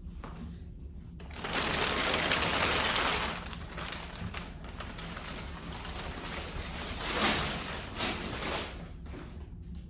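Rustling and scraping of printer packaging being handled, loudest for about two seconds starting a second and a half in, then quieter with a couple of short bumps near the end.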